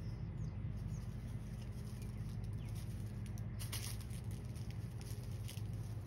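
A car driving downhill on wet pavement: a steady low tyre and road rumble with scattered light ticks and patter over it.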